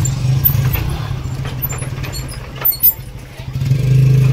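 An engine idling with a steady low throb. It drops back through the middle and comes up loud again near the end, with two sharp knocks about two-thirds of the way through.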